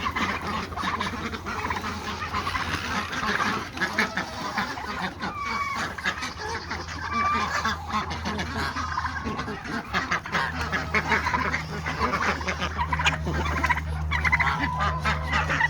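A mixed flock of farm geese and ducks calling over one another without a break, the geese honking and the ducks quacking, over a steady low hum.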